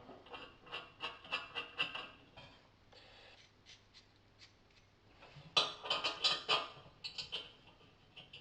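Small metal parts clinking and rattling as a bolt is fitted through a steel clamp bracket. The sound comes in two bursts of quick clicks, with a quieter pause between them.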